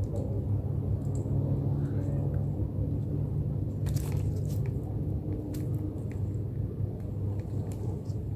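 A steady low rumbling hum runs underneath. About four seconds in, short sharp scuffling noises come as two cats swat at each other.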